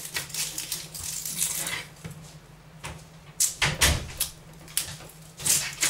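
Kitchen knife cutting an onion on a plastic chopping board: sharp knocks of the blade on the board, the loudest cluster about three and a half seconds in, with the rustle of the onion being cut between.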